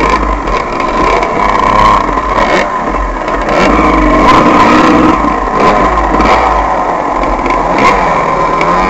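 Off-road dirt bike engine being ridden, its pitch rising and falling over and over as the throttle opens and closes, with a steady low rumble of wind on the microphone.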